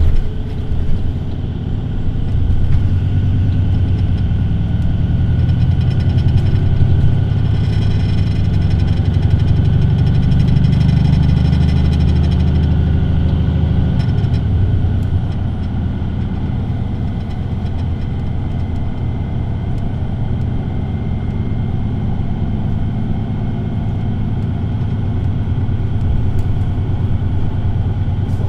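VDL Citea LLE 120 city bus's diesel engine running under way. It pulls harder and louder from a couple of seconds in, then eases off about halfway through to a steadier, quieter run.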